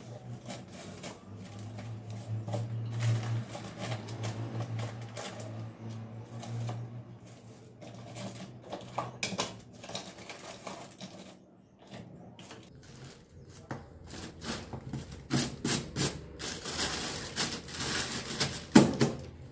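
Grocery jars and packets being set down and moved about on a stainless steel wire kitchen rack: scattered clicks and light clatter, with plastic bags rustling toward the end. A low hum runs under the first several seconds.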